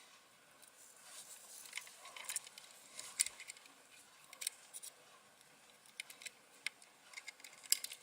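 Irregular small, sharp clicks and light scraping of a small metal hand tool working wire pins into a screw-terminal connector.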